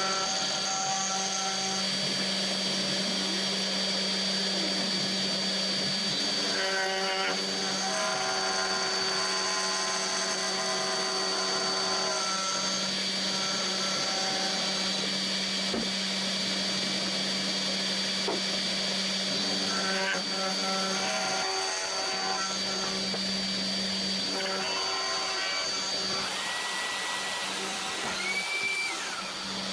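DeWalt DWP611 compact router running at about 9,900 rpm as the spindle of a hobby CNC machine, its 1/8-inch bit milling a white plastic sheet at a slow feed. Higher tones from the machine's axis drive motors start, stop and change pitch now and then as the cutter moves along its path.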